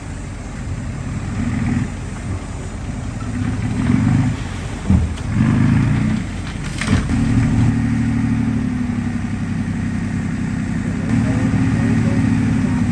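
Heavy diesel engine of earthmoving machinery working, its load and pitch swelling and dipping over the first seven seconds and then running steadily. A sharp metallic clank about seven seconds in.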